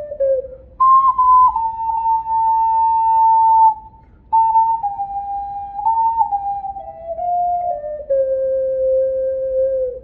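Ocarina playing a slow melody, one pure, clear note at a time, with a short break for breath about four seconds in. The tune steps downward and closes on a long held low note that stops at the end.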